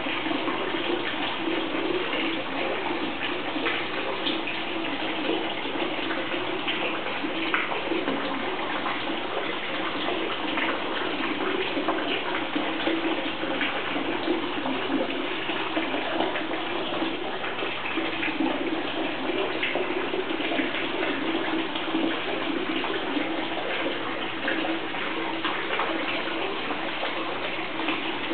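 Aquarium water running and bubbling steadily: a continuous rushing, crackling water noise from the tank's aeration and circulation.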